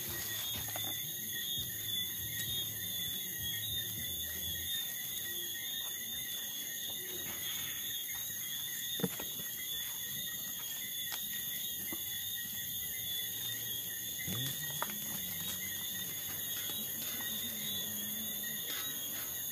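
Steady chorus of crickets and other insects, several high continuous tones, with a couple of faint knocks.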